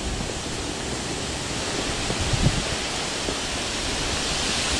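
Steady outdoor noise: an even hiss over a low rumble, with a soft thump about two and a half seconds in.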